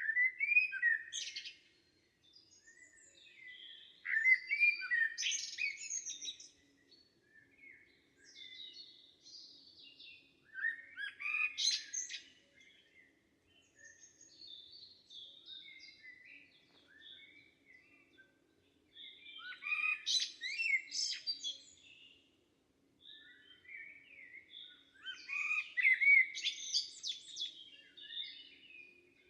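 Songbirds singing in a summer forest: loud, warbling song phrases of a second or two about every six to seven seconds, with quieter chirps in between.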